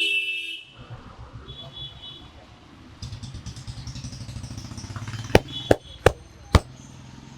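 Four sharp, loud smacks from the barber's massage, a third to half a second apart, near the end, over steady street traffic with an engine hum. A vehicle horn toots briefly right at the start.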